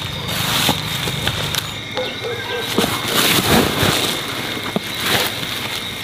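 A woven plastic sack rustling and crinkling as papayas are handled and put into it, with irregular soft knocks and crackles.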